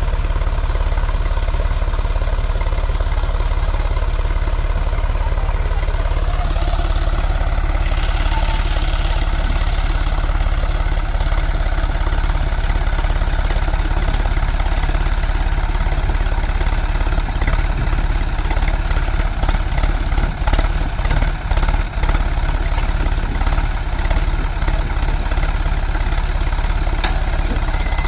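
Sonalika tractor's diesel engine running steadily, with a heavy low rumble.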